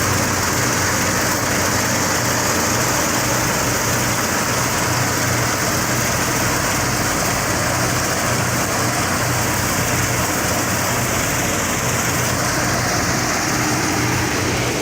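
New Holland 8070 combine harvester running steadily: a constant low engine hum under a dense, even mechanical hiss.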